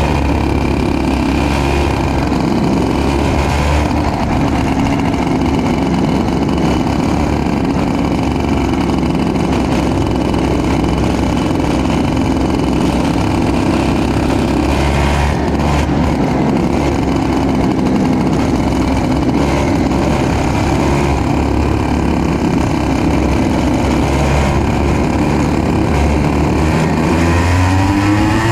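The kart's own IAME KA100 100cc two-stroke engine runs at low, fairly steady revs close to the microphone. Near the end it revs up, rising in pitch as the kart pulls away.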